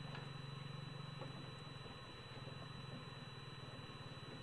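A small engine running steadily at idle: a low, fast-pulsing hum that eases slightly midway.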